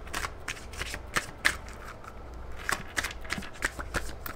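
A deck of oracle cards being shuffled by hand, the cards flicking and slapping against each other in an irregular run of quick clicks that grows busier in the second half.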